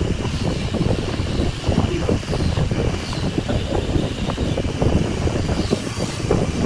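Wood lathe running, a steady rumble with a dense, irregular rattle.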